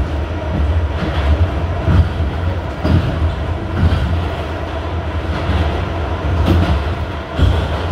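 R68 subway car running through a tunnel: a steady low rumble, with the wheels clacking over rail joints every second or so.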